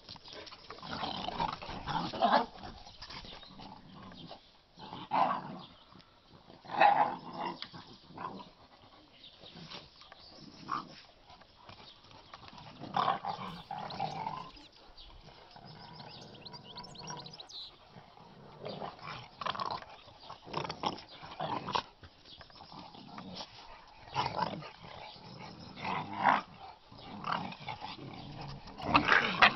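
Shar pei puppies playing rough with each other and a larger dog, growling in short bursts every few seconds.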